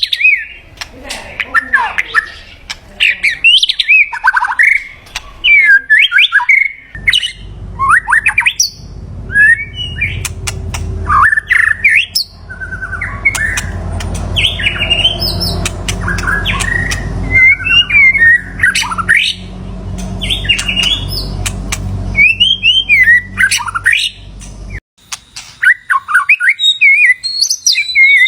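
White-rumped shama singing: phrase after phrase of rich, varied whistled notes that sweep up and down in pitch. A low rumble runs under the song from about a quarter of the way in until near the end.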